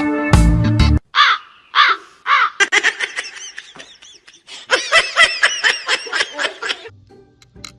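Music cuts off about a second in, followed by animal calls: three separate arching cries, then a fast run of many short, rising-and-falling cries that stops near the end.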